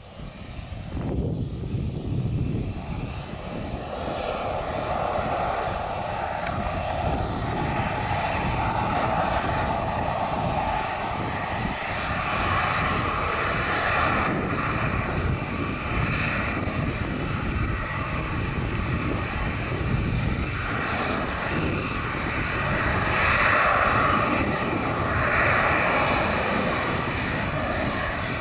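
Boeing 737-800's twin CFM56-7B turbofans running at taxi power: a steady whine and rush that grows louder and brighter once the airliner turns to face the listener, loudest a little past the two-thirds mark.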